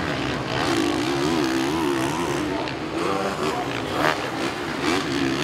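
Honda four-stroke motocross bikes racing, their engines revving up and down as the riders work the throttle through the dirt track's corners and bumps. There is a sharp louder burst about four seconds in.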